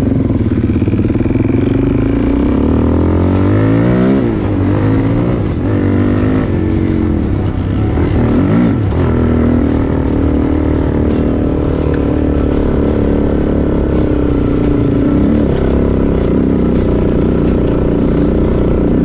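Motorcycle engine under way, the pitch rising and dropping several times with throttle and gear changes over the first nine seconds or so, then running at a steady note.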